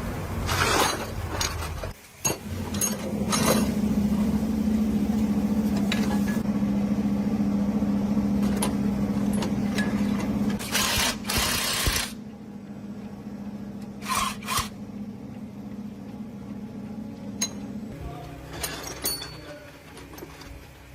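A power tool's motor running with a steady hum, starting about two seconds in, easing off about halfway and stopping near the end, with sharp metallic clicks and scraping noises over it.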